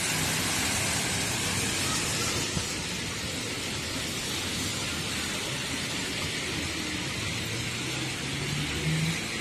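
Steady hiss of rain and car tyres running through water on a wet road. An engine note rises briefly near the end as a vehicle passes.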